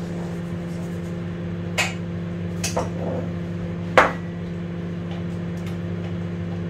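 Steady kitchen-appliance hum under a few sharp knocks and clinks of a measuring cup and mixing bowl handled on the counter, the loudest knock about four seconds in.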